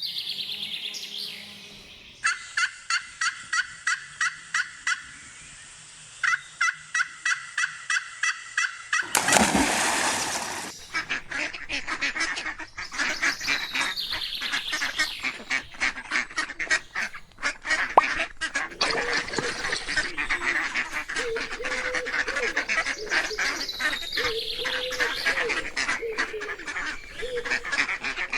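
Waterfowl calling: two runs of rapid, evenly spaced calls, then from about nine seconds in many birds calling over one another.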